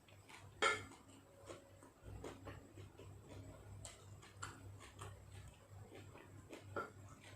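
Eating utensil clinking against a dish: one sharp clink about a second in and another near the end, among soft scattered clicks of eating, over a steady low hum.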